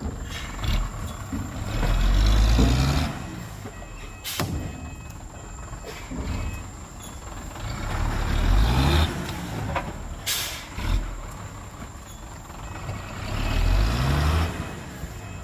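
Hyundai dump truck's diesel engine revving up three times, each rise climbing in pitch, as the truck pulls forward with its tipper bed raised to spill the last of its load of soil. There is a short sharp sound about four seconds in and a brief hiss about ten seconds in.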